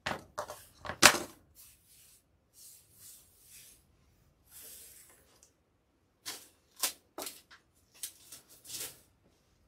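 Irregular clicks, taps and rustles of craft materials being handled and moved about, with a sharp tap about a second in and a cluster of clicks in the last few seconds.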